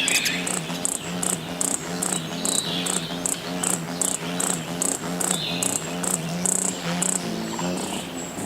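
Crickets chirping in a steady rhythm, about two to three high chirps a second, over a lower continuous pulsing sound.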